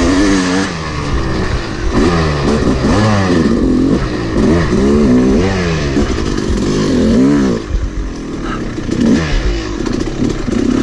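Yamaha YZ250 single-cylinder two-stroke dirt bike engine revving up and down again and again as the throttle is worked through the trail, easing off briefly about eight seconds in.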